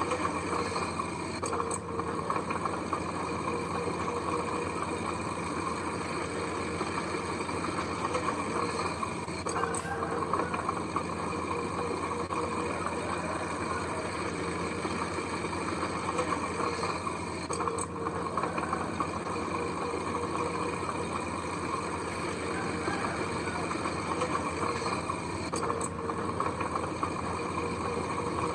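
Heavy construction machine's diesel engine running steadily at a constant speed, with faint clicks about every eight seconds.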